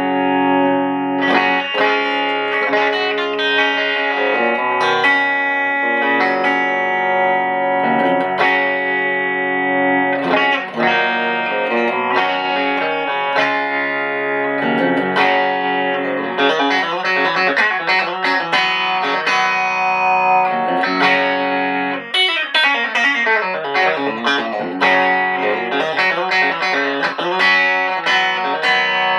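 Electric guitar played clean through a small amp with no effects: a WestCreek TT-20 Telecaster-style guitar on its bridge pickup at full volume and tone, running through a Vox MV50 head into a 1x10 cabinet. Notes and chords are picked continuously as a sound check.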